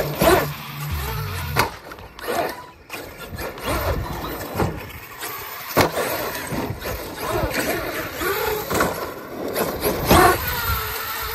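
Arrma Kraton 8S RC monster truck's brushless electric motor whining up and down in pitch as it is driven hard, with tyre noise on asphalt. Several sharp knocks come as it hits ramps and bumps.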